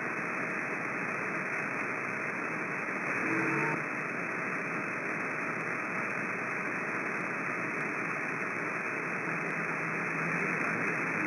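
CB radio receiver on channel 6 putting out steady static hiss between transmissions, with a faint brief tone about three seconds in.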